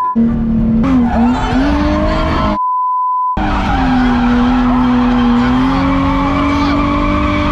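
Drift car's engine running under load with tires squealing as the car slides, heard from inside the cabin; the engine note holds fairly level with small rises. A censor beep cuts out all other sound right at the start and again for most of a second about two and a half seconds in.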